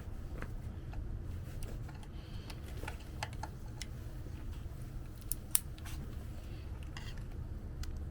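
Scattered small clicks and scrapes of a hand tool prying an old flush-fitted alarm door contact out of its recess in the door frame, with a few sharper clicks in the middle, over a steady low rumble.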